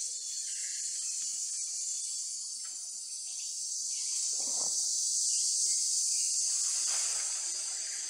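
Steady high-pitched hiss of an insect chorus, swelling a little in the middle.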